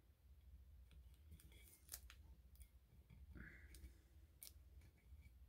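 Near silence with a few faint, scattered clicks as long fingernails handle small vinyl decal pieces and press them onto a tumbler.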